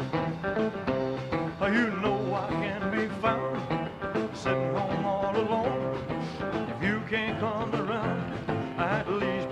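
Live rock and roll band music with a steady beat, playing on between two songs of a medley.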